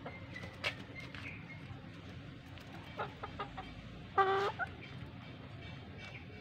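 Chicken clucking: one loud short cluck about four seconds in, with a softer one right after it. A few short taps come before it.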